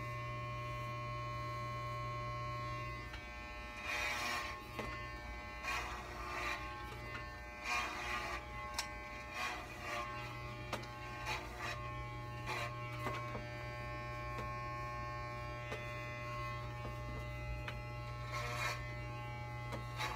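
Corded electric hair clippers running with a steady buzz while cutting a synthetic wig, with irregular brief louder bursts as the blades pass through the hair.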